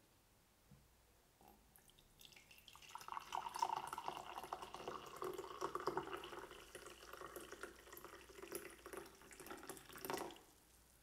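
Green tea being poured from a French press into a ceramic mug: a thin stream of liquid splashing into the cup. It starts about two seconds in, is loudest soon after it starts, and stops just after ten seconds.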